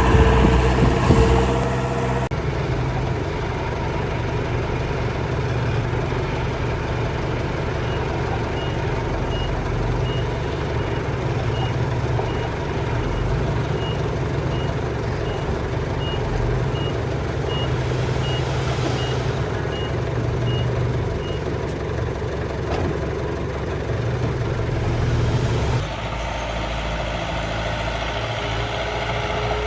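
Miniature construction machine running with a steady low engine drone; about eight seconds in a reversing beeper starts, sounding at an even pace of about one and a half beeps a second for some thirteen seconds before stopping.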